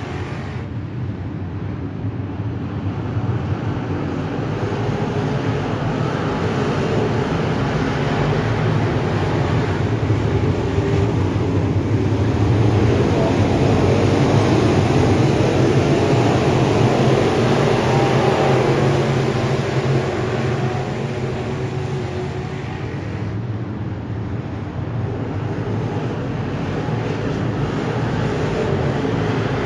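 A pack of dirt-track modified race cars' V8 engines running at race speed around the oval. The sound swells as the field comes past, eases off about three-quarters of the way through, then rises again.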